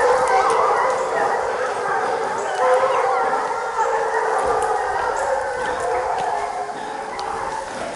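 A pack of foxhounds baying and howling together, many voices overlapping without a break: the pack giving tongue as it runs on the line of a coyote.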